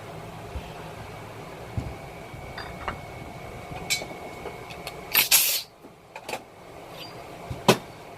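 Workshop handling noises over a steady background hum: a few sharp clicks and knocks of metal parts and tools, with a short loud hiss about five seconds in.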